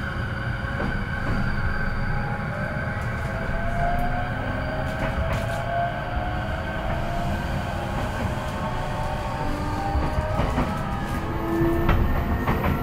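Interior sound of a JR East E233-5000 series electric train's motor car pulling away: a steady low rumble with faint tones from the traction motors' inverter rising slowly as the train gathers speed.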